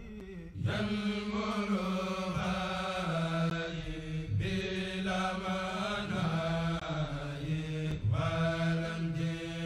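Intro music: a chanting voice holding long notes one after another.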